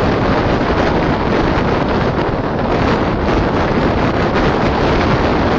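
Wind buffeting the microphone over the steady running of a small boat's engine under way.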